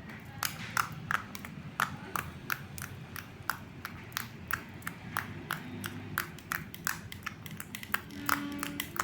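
Slime being squeezed and kneaded, giving a steady run of sharp, wet clicks and pops, about three a second.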